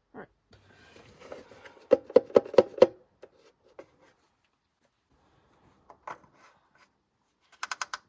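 Handling noises while finishing topping up the engine oil: a quick run of five sharp knocks about two seconds in, a single click a few seconds later, and a rapid cluster of clicks near the end.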